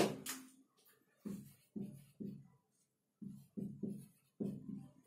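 Felt-tip marker writing on a whiteboard: a sharp tap at the start, then a run of short, quick strokes and squeaks as letters are drawn.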